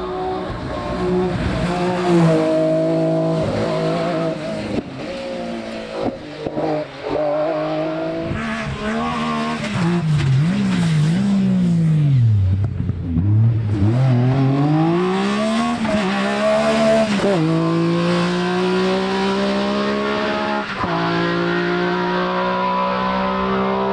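Metro 6R4 rally car's 3.0-litre V6 engine driven hard, its revs climbing and dropping sharply again and again through gear changes. Around the middle the revs swoop down and back up several times, then the engine holds high revs steadily near the end.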